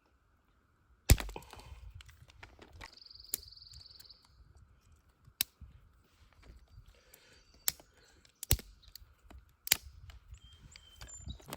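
A series of separate sharp knocks and clicks, the loudest about a second in, with a short high buzzy trill around three seconds in.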